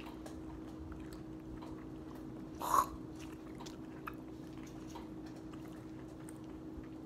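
Faint wet mouth clicks from lemon slices being held and chewed, and a short sharp spit nearly three seconds in as a piece of lemon is spat out.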